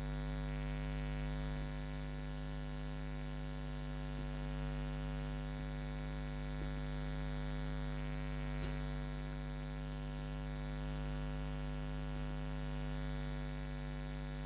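Steady electrical mains hum picked up by the recording, a constant buzz with many evenly spaced overtones. There is a single faint click about eight and a half seconds in.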